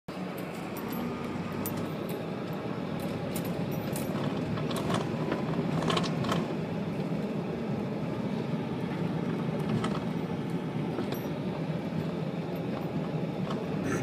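Car driving over a dirt road, heard from inside the cabin: steady low road and engine noise, with scattered small clicks and rattles.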